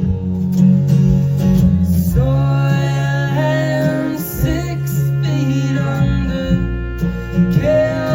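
Live band music without lyrics: strummed acoustic guitar over a steady bass, with a melodic lead line coming in about two seconds in.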